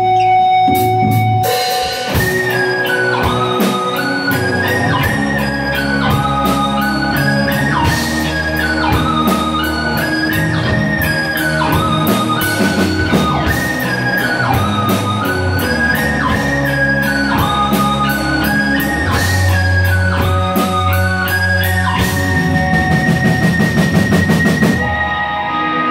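Live rock band playing an instrumental passage: two electric guitars, one repeating a lead melody, over bass guitar and a drum kit. Near the end the drums break into fast repeated hits under a held guitar note.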